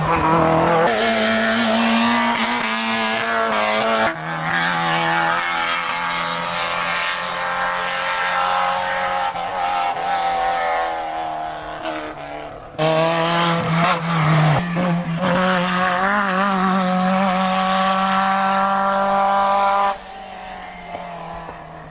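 Rally car engines at high revs on a tarmac stage, several cars in turn, each engine climbing and dropping in pitch through the gears. The sound changes abruptly about four seconds in, around thirteen seconds and near the end.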